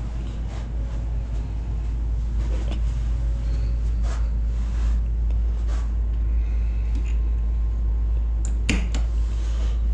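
Steady low rumble with a few scattered soft knocks and rustles, from a handheld camera being carried by someone walking across carpet.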